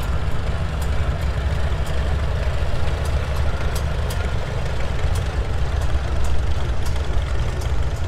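Vintage International Harvester tractor engines running slowly as the tractors drive past, the nearest a small tractor rolling by close at hand; a steady, low-pitched engine sound.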